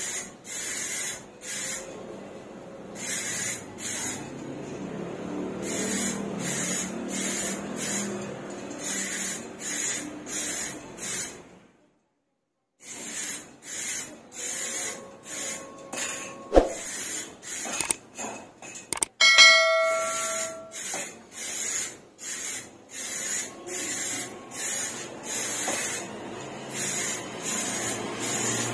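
Aerosol spray can hissing in short repeated bursts, about one a second, as a clear coat is sprayed onto a motorcycle helmet. A brief ringing tone sounds once about two-thirds of the way in.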